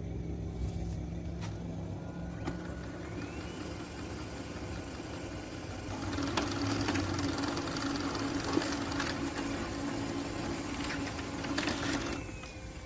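Brother HL-2140 laser printer printing a page: a low mechanical hum that grows louder, with a steady whirr and clicks, from about six seconds in as the sheet feeds through, then stops near the end as the printed page comes out.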